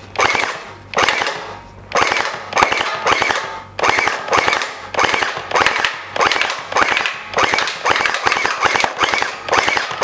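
SKD M4 electric gel blaster firing a rapid series of shots in short, quickly repeated bursts, about one to two bursts a second, with gel balls being driven into a paper target.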